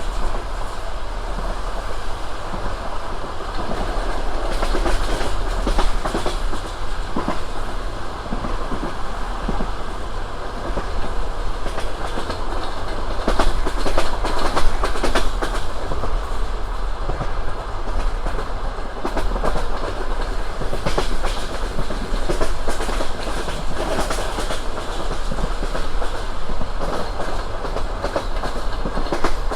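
Passenger train carriage running along the line: steady rumble of the wheels with the clickety-clack of wheels striking rail joints, a few louder knocks about halfway through.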